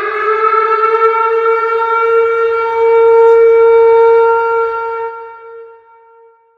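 Tornado warning siren sounding a steady wail. Its pitch finishes rising early on, and the tone grows loudest midway before fading out about five seconds in.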